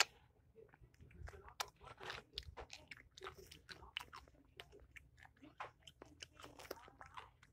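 Dog chewing a pickle: faint, irregular wet crunches and bites, several a second.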